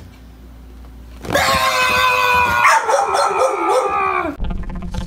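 A loud, drawn-out scream, held steady at first, then wavering and falling away, as a jump scare. Music with a drum beat kicks in near the end.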